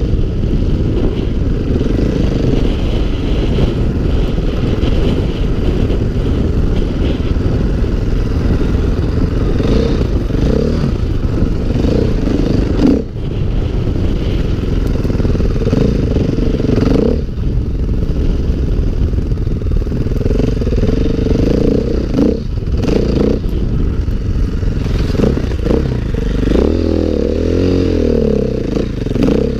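A 2016 KTM 500 EXC Six Days dirt bike's single-cylinder four-stroke engine running under load as it is ridden over rough ground, the revs rising and falling with the throttle. The throttle drops off briefly a couple of times, and the revs sweep up and down near the end.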